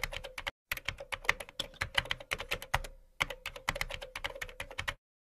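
Typing sound effect: rapid keyboard key clicks in quick runs, with a brief break about half a second in and another near three seconds in, cutting off abruptly about five seconds in.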